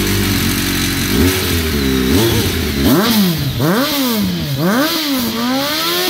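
BMW K1300S inline-four engine through an Akrapovic slip-on exhaust, idling and then revved in repeated throttle blips. The pitch climbs and drops about once a second in the second half.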